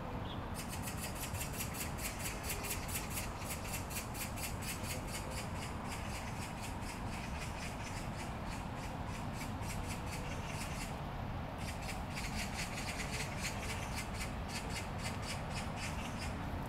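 Insects buzzing high and shrill in rapid, even pulses. The buzz stops briefly about eleven seconds in and then resumes, over a steady low background noise.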